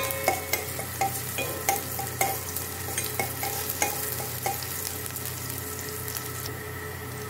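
Chopped shallots and garlic sizzling in sesame oil in a metal pot. For the first four and a half seconds a stirring utensil clicks and scrapes against the pot about twice a second. After that the sizzle goes on steadily alone.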